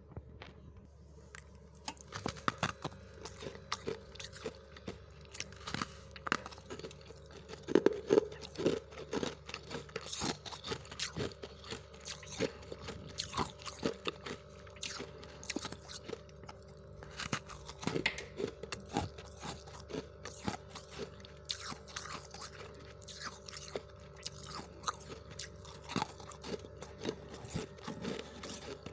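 Freezer frost being bitten and chewed close to the microphone: dense, irregular crunches starting about two seconds in, over a faint steady hum.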